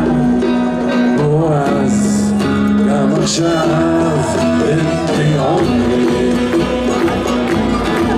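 Live acoustic band music: a resonator guitar and an acoustic guitar strumming, with a violin and a flute playing held, melodic notes, and a man singing.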